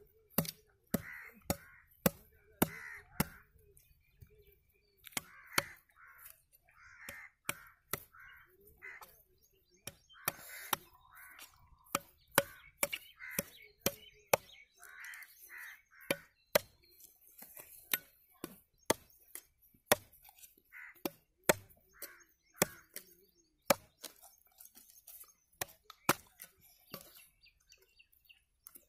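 A machete chopping into the husk and soft shell of a green tender coconut to open it: sharp, irregular strokes, about one or two a second. Repeated bird calls sound between the strokes.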